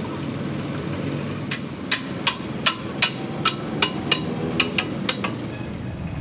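A hammer strikes a heavy truck's metal suspension trunnion bracket about a dozen times in quick succession, roughly three blows a second. The blows start about a second and a half in and stop a little after five seconds.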